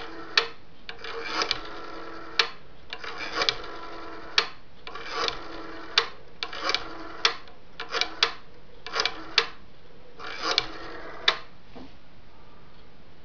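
A 1960s Western Electric three-slot payphone being dialed: a series of about a dozen sharp clicks at uneven spacing as the number is entered, stopping about a second and a half before the end.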